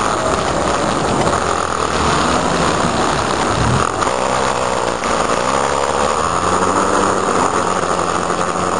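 Steady engine and road noise heard from on board a moving vehicle, with a constant hiss over it.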